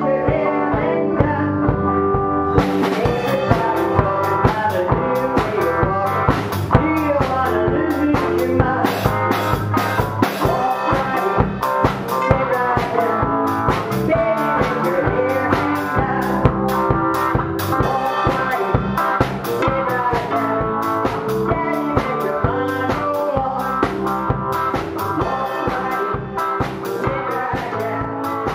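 Band music in a blues-rock style: drum kit keeping a steady beat under electric guitar and keyboard. The sound brightens about two and a half seconds in.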